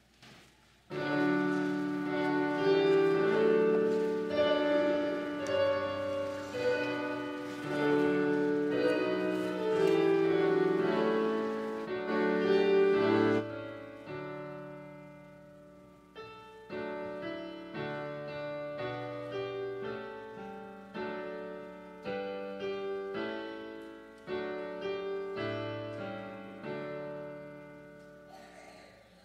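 Keyboard instrument playing a chordal hymn introduction. A loud, held passage starts about a second in and stops suddenly about halfway through. It is followed by a softer passage of separately struck chords that each fade away.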